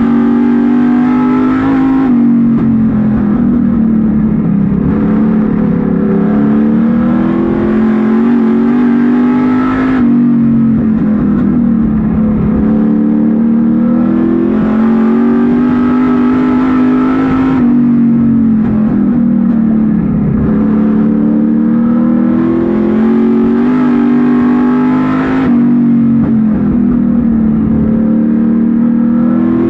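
Street stock race car's V8 engine heard from inside the cockpit, at racing speed. Its pitch rises and falls about every seven to eight seconds, easing off sharply for each corner and climbing again under acceleration down each straight.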